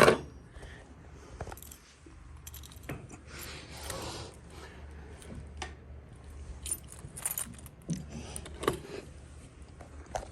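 Handling noise from a fire alarm strobe and its packaging: a sharp knock right at the start, then scattered light clicks, clinks and rustling.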